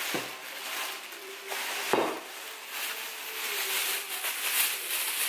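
Plastic shopping bags rustling and crinkling as they are handled and items are pulled out, with two knocks, one just after the start and one about two seconds in.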